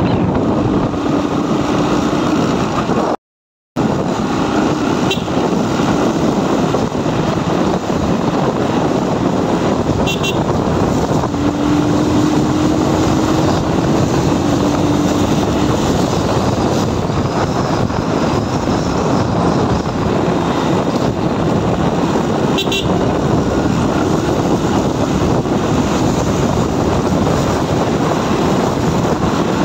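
Motorcycle riding along a road: steady wind rush on the microphone over the running engine, with a few brief horn toots. A short cut to silence falls about three seconds in.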